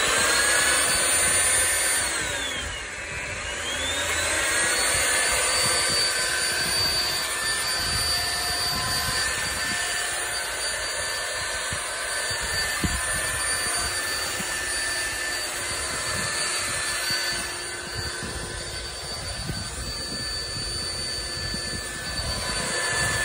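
Electric ground-screw driving motor running, spinning up to a high whine, dipping in pitch a couple of seconds in and climbing back, then holding a steady whine as it turns a steel ground screw into the ground.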